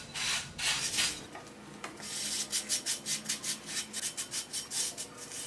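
Small towel wiping coarse kosher salt out of a cast iron skillet after a salt-and-lemon scrub: gritty rubbing strokes that speed up from about two seconds in, to around three or four a second.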